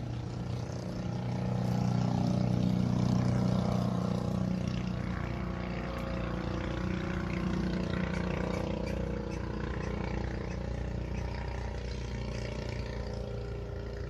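Low, steady engine drone of a motor running, swelling louder a couple of seconds in and then slowly easing off.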